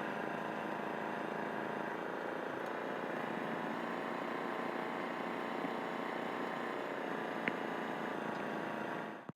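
Engine running steadily, with a brief click about seven and a half seconds in; the sound cuts off suddenly near the end.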